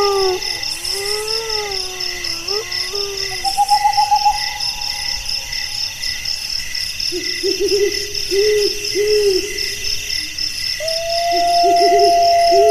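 Night insect chorus of steady, rapidly pulsing chirps, over which long wavering howls rise and fall in the first few seconds. From about seven seconds in come runs of short, low hooting notes, and a long steady howl begins near the end.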